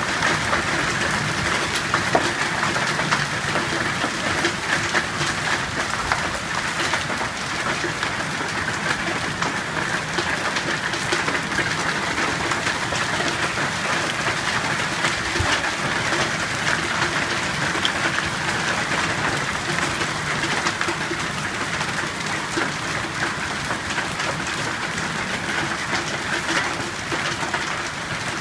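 Hail falling heavily: a dense, steady din of countless small, sharp impacts on the surfaces around.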